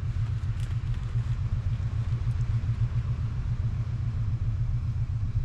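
An engine running at a steady idle nearby, a low, even rumble with a fast pulse, plus a few faint ticks.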